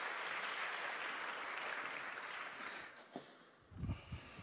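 Audience applause that fades out about three seconds in, followed by a click and a few low thumps near the end.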